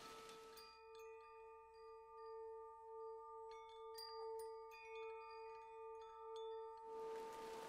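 Soft ambient background music: a low held tone pulsing gently, with scattered chime-like notes above it. A soft hiss drops out just after the start and comes back near the end.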